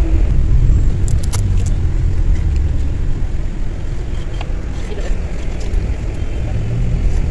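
Cabin noise inside a moving coach bus: a steady low rumble of engine and road, with a few short clicks about a second in.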